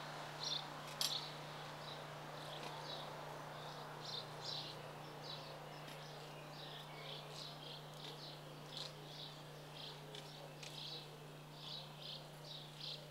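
Small birds chirping in short, high notes, scattered irregularly, over a steady low hum and a faint hiss, with a light tap about a second in.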